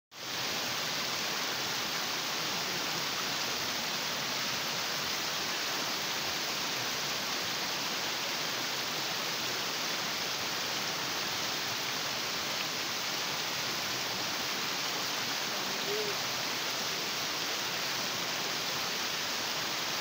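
Water of a small rocky stream cascading over boulders and rock slabs, a steady, even rush.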